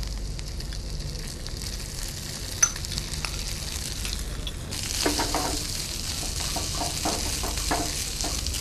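Cooked rice sizzling in hot butter in a frying pan as it is tipped in from a bowl, with one sharp tap about two and a half seconds in. From about five seconds in a wooden spatula scrapes and stirs the rice, and the sizzle gets louder: rice being fried in butter with garlic and parsley for butter rice.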